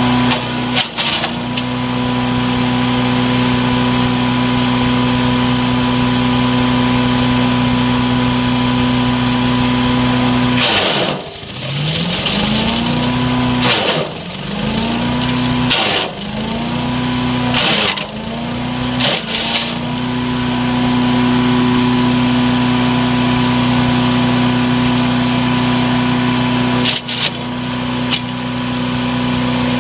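A Harbor Freight wood chipper's Predator 212cc single-cylinder engine runs at a steady governed speed. From about a third of the way in, it bogs down and recovers five times in quick succession as branches load it, with knocks and cracks of wood being chipped.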